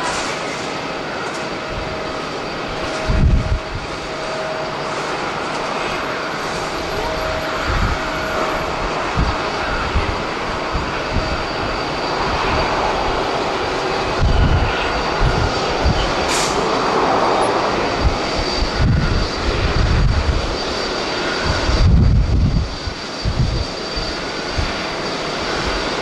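Jet airliner engines running at an airport apron: a steady rushing noise with a thin whine over the first third, swelling near the middle. Gusts of strong wind buffet the microphone with short low rumbles several times.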